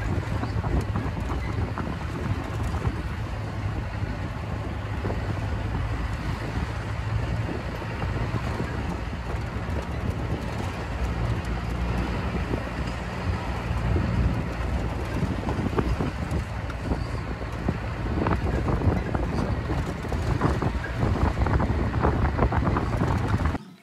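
Safari vehicle driving, its engine and road rumble steady and low, with wind buffeting the microphone. It cuts off abruptly near the end.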